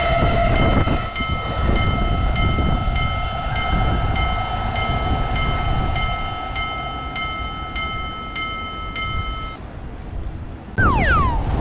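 Japanese railroad crossing alarm bell ringing steadily, a little under two strikes a second, over the low rumble of a passing train. The bell stops near the end, and a short falling whistle-like glide follows.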